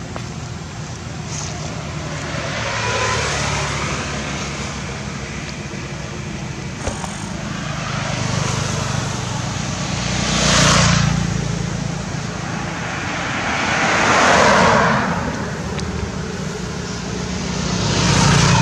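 Road traffic: several vehicles pass one after another, each a broad whoosh that swells and fades over a second or two, over a steady low rumble.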